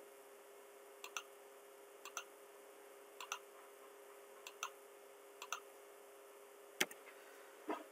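Computer mouse button clicks, each a quick press-and-release pair, five times about once a second as lines are picked one after another. A sharper knock follows near the end, over a faint steady hum.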